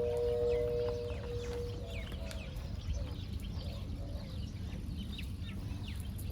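A few held musical notes stepping down in pitch fade out in the first two seconds. After that, birds call: many short chirps that drop in pitch, several a second, over a steady low rumble.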